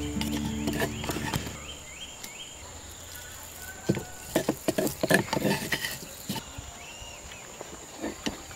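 A spoon knocking and scraping in a wooden mortar as pounded chili paste is scooped out. The knocks come in a quick cluster about four to six seconds in, with one more near the end.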